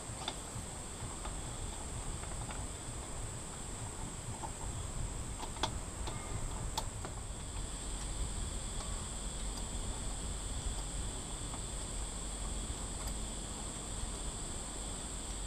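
Steady high-pitched insect chirring, with a few light metallic clicks from steel head bolts being handled and threaded into an outboard's cylinder head.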